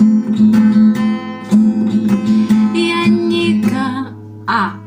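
Acoustic guitar strumming an F chord in a fast repeating six-stroke pattern: down, down, up, up, down, up. A voice starts singing about three seconds in.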